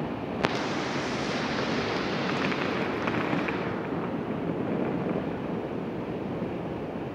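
River water rushing over a weir: a steady, wide hiss at an even level. A single sharp click comes about half a second in.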